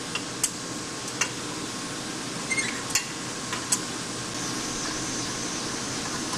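Hex key working the socket head cap screws of a centrifuge's metal bowl lid as they are loosened: a handful of short metallic clicks and clinks over a steady background hum.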